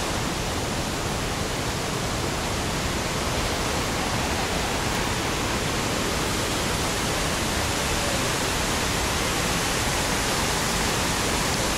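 Steady rush of running water at an even level, which cuts off abruptly at the end.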